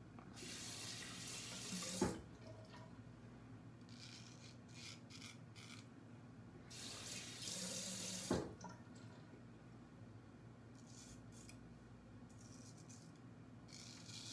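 Bathroom tap water running in two short bursts, about five seconds apart, as lather is rinsed off a straight razor between passes. Each burst ends with a sharp knock.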